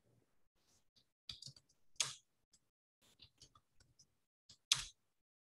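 Computer keyboard keystrokes: faint, irregular clicks of typing, with two sharper key presses about two seconds in and near the end.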